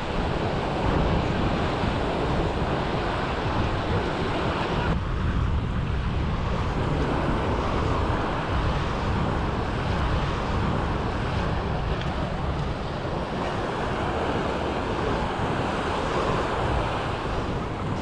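Sea waves washing onto the beach, with wind buffeting the microphone in a steady low rumble.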